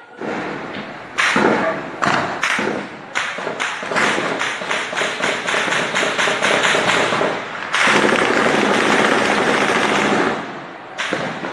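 Rapid gunfire in bursts, several shots a second, from automatic weapons, with a longer unbroken stretch of firing about eight seconds in.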